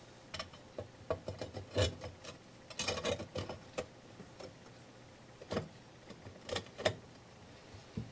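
Glazed ceramic shards of a broken cookie jar clicking and clinking against each other as they are handled and fitted together, in irregular clusters of light taps.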